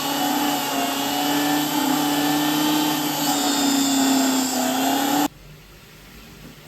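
Jeweller's electric polishing motor spinning a ring against a buff, a steady hum with a slightly wavering pitch and a hiss. It is switched off and cuts out suddenly about five seconds in.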